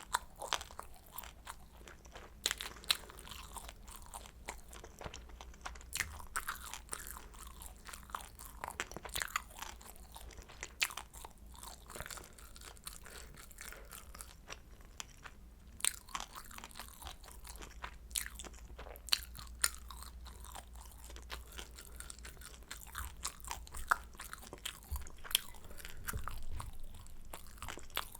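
A person chewing crispy pan-fried kimchi dumplings, with irregular sharp crunches between quieter chewing.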